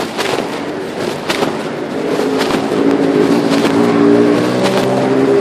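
Phone in a pocket, with fabric rubbing and knocking on the microphone. From about two seconds in, a motor vehicle's engine hum comes through and grows louder.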